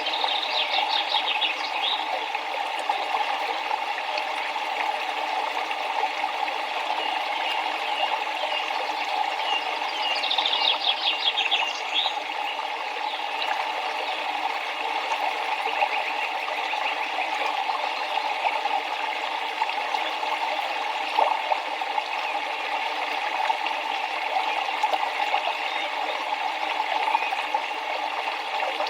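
A river flowing with a steady rushing of water. Twice a bird gives a short, rapid high trill: once at the start and again about ten seconds in.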